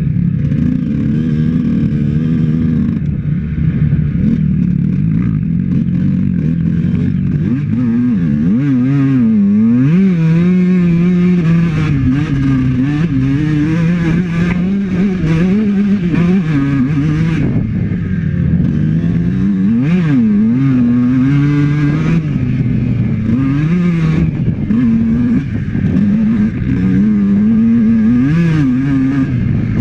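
Honda CR125 two-stroke dirt bike engine running hard on a trail ride. It holds fairly steady for the first several seconds, then revs up and down again and again as the throttle is worked.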